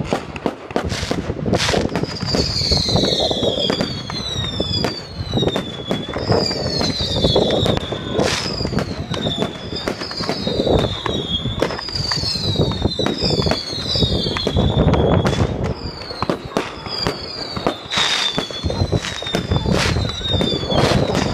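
Fireworks display: a rapid string of whistling fireworks, each a short falling whistle, coming about once a second, over repeated bangs and crackling bursts.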